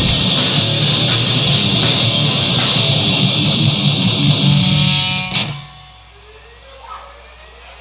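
Live rock band with distorted electric guitar, bass and drums playing loud, then stopping abruptly on a final hit about five seconds in; a low steady hum remains after it.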